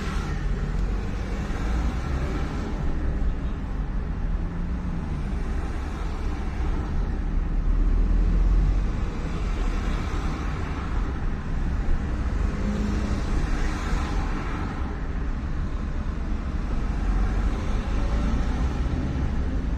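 Car running with a steady low rumble of engine and road noise, swelling and easing a little a couple of times.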